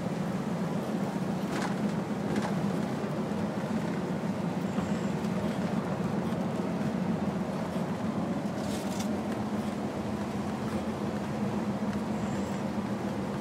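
Steady drone of a large vehicle's engine and tyres on a wet road, heard from inside the cab, with a few brief knocks.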